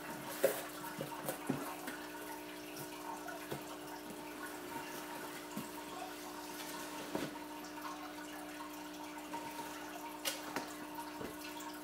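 An aquarium filter runs with a steady hum and a faint trickle of water. A few light knocks and rustles of cardboard come through as the box flaps are handled, most noticeably about half a second in, around 7 seconds and near 10 seconds.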